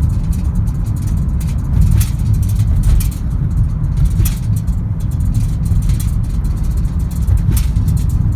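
Lada Largus Cross driving on a rough road: a steady low rumble of road and engine, with sharp knocks now and then, about four of them, from bumps in the surface.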